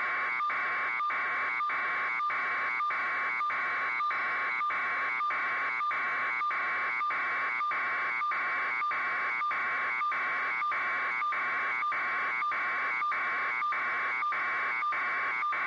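Electronic alarm beeping in a steady, unbroken rhythm, a little over two buzzy beeps a second.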